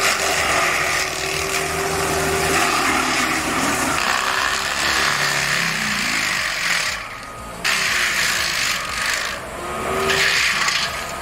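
Heavy forestry machine working wood: the diesel engine runs under load, its note shifting up and down, over a grinding and cutting noise. The noise drops off briefly about seven seconds in, then picks up again.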